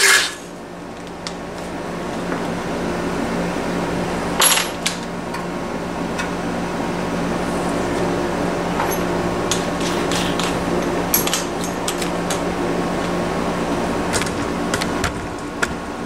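A cordless drill cuts off right at the start. Then a steady low hum runs on under scattered light clicks and clinks of tools and metal being handled.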